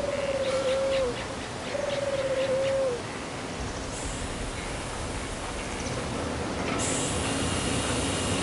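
A bird's two drawn-out calls, each about a second long and a little over half a second apart, holding one pitch, wavering and dropping slightly at the end. They sit over a steady hiss, with a few faint ticks between them, and the hiss turns brighter near the end.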